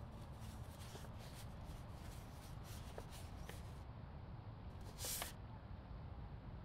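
Soft rustling of paper and packaging as a white box is handled, with a couple of small clicks and one louder, brief rustle about five seconds in, over a low steady hum.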